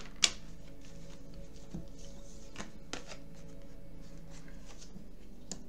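Tarot cards being handled and shuffled, with a sharp flick about a quarter second in and a few softer taps later, over soft background music.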